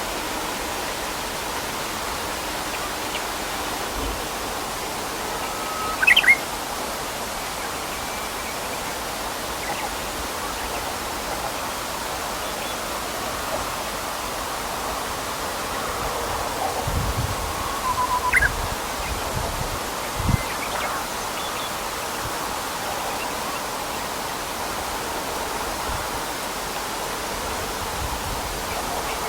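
Japanese bush warbler singing twice, each song a held whistle followed by a quick rising flourish, over a steady rush of river water.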